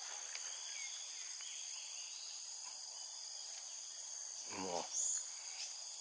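Steady insect chorus, several high shrill tones holding level without a break. About four and a half seconds in there is a brief sound from a man's voice.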